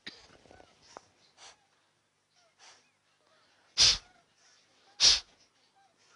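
Kapalbhati breathing: short, forceful exhalations through one nostril, about one a second. Two faint puffs come first, then two loud ones near the end.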